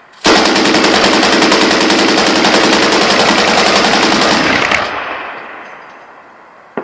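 Machine gun firing one long, continuous, rapid burst of about four seconds, then the echo dying away. A single sharp shot comes right at the end.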